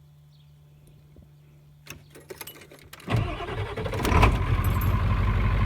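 1994 Ford F-250's 7.3L Powerstroke V8 turbo-diesel being started after its glow-plug wait: about two seconds in the starter clatters briefly, then the engine fires at about three seconds, surges and settles into a loud, steady idle.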